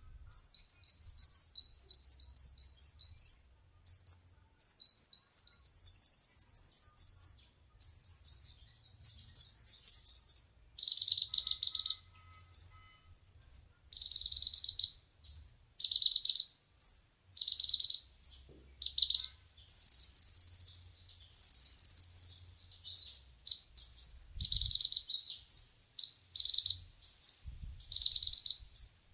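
A sunbird (the 'kolibri ninja' of Indonesian bird keepers) singing high-pitched: fast trilled phrases and sharp chirps, repeated with short pauses, mixed with longer buzzy rattling notes.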